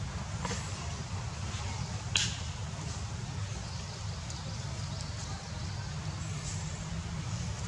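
A few brief crackles and ticks of dry leaf litter as macaques move about on it, the sharpest click about two seconds in, over a steady low rumble.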